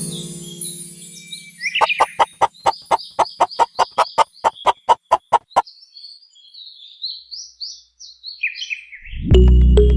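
Birds chirping, with a quick, even run of clicks, about four a second, that lasts a few seconds and then stops. A music note fades at the start, and music comes back in loudly near the end.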